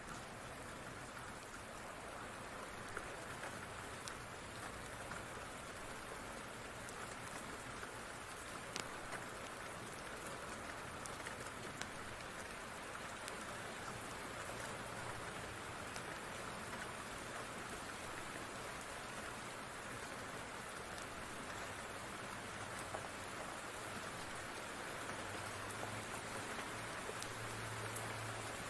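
Steady rain falling, an even dense hiss with scattered sharp clicks of drops. A low rumble swells near the end.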